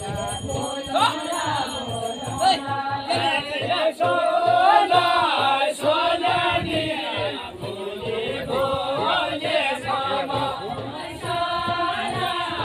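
A group of villagers singing a Kumaoni jhoda-chachari folk song together, with a regular low beat under the singing from a small hand drum, likely a hudka.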